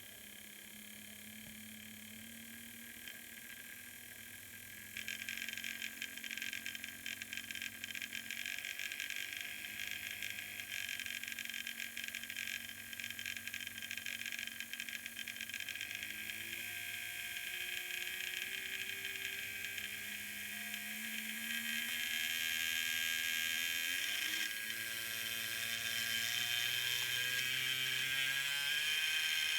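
Fleischmann BR 140 model locomotive running, its motor and gears whining with a rough, rapid rasping buzz that starts suddenly about five seconds in: the strange running noise the owner is trying to trace. The whine climbs in pitch over the last several seconds as the locomotive speeds up.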